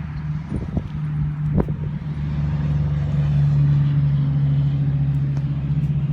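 A steady low motor hum, growing a little louder in the middle, with a few short knocks in the first two seconds.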